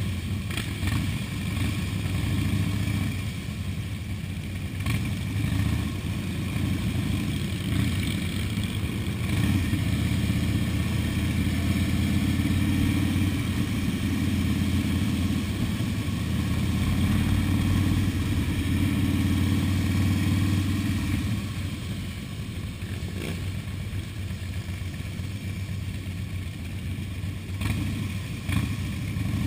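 Motorcycle engines on a slow group ride, heard from a helmet camera as a steady low rumble. It grows louder about ten seconds in and eases off after about twenty-one seconds.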